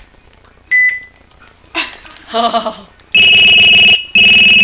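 Cell phone ringtone played through the phone's speaker: a loud, high electronic tone in pulses of just under a second with short breaks between them, starting about three seconds in. A single short beep sounds about a second in.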